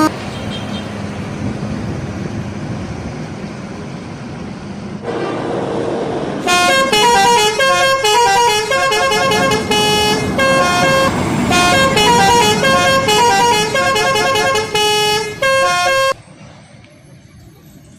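An Indonesian bus's telolet horn, a multi-tone musical air horn, plays a fast melody of quickly changing notes for about ten seconds, then stops abruptly. Before the melody there are a few seconds of steady passing-vehicle noise.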